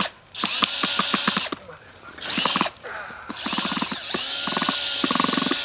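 Power drill driving a screw in three bursts. Each time the motor whine rises as it spins up and then holds steady, with rapid clicking over it.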